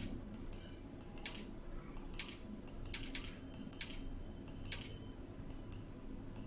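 Faint, irregular clicking at the computer, about seven short clicks spread over the few seconds, over a low steady background hum.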